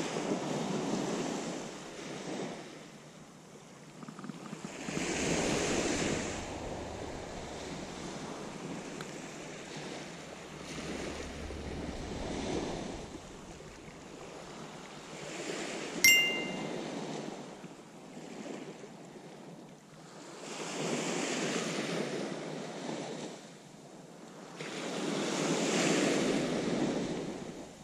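Small waves breaking and washing up a sand-and-pebble beach, rising and falling in slow swells every few seconds. A single sharp metallic ding about two thirds of the way in.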